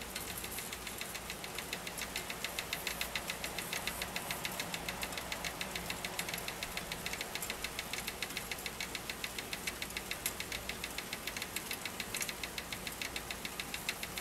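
A swarm of small moths fluttering in a light and striking a surface, making a rain-like pattering. About two seconds in, a rapid, even tapping of about five taps a second sets in and keeps going.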